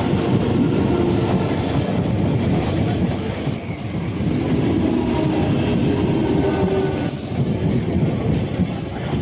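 An Eastern Railway EMU local train passing close at speed: a loud, steady rumble and clatter of wheels on rails as the coaches go by.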